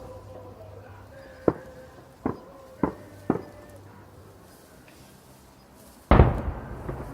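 Fireworks going off: four sharp bangs about a second and a half to three seconds in, then a much louder, deeper shell burst about six seconds in that echoes and dies away.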